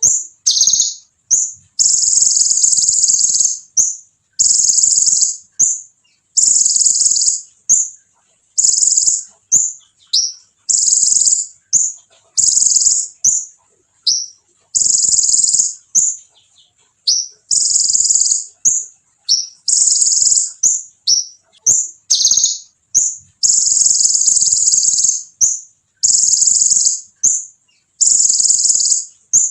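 Konin (olive-backed sunbird) singing hard: a high, shrill rolling trill repeated in bursts of one to two seconds, about every two seconds, with short slurred chips between the bursts.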